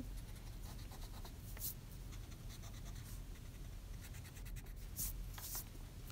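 Pencil-top eraser rubbing on drawing paper in a few short strokes, faint, the clearest about a second and a half in and two more near the end.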